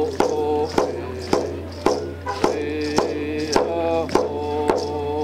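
A man singing a Native American song while beating an octagonal hide hand drum with a beater, in a steady beat of a little under two strikes a second.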